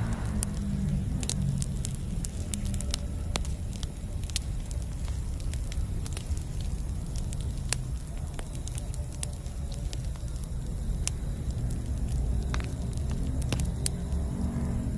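Campfire burning: irregular sharp crackles and pops from the burning wood over a steady low rumble.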